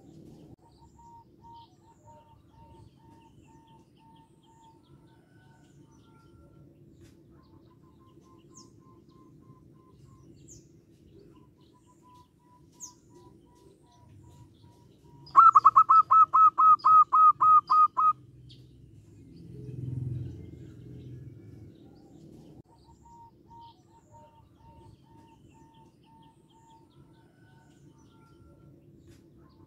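Zebra dove calling: a loud run of about a dozen quick, clipped cooing notes, about four a second, lasting some three seconds midway. Fainter runs of similar repeated notes come before and after.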